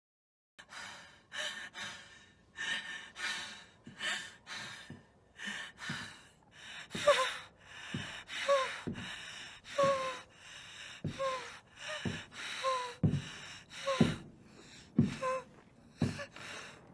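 A woman's heavy, ragged gasping breaths, about one a second, beginning about half a second in. From midway on, most breaths carry a short whimpering moan that drops in pitch: the labored breathing of an injured person.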